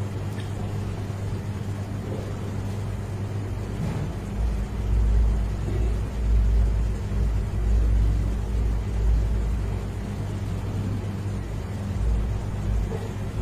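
A steady low hum, with a deeper rumble that comes and goes from about four seconds in.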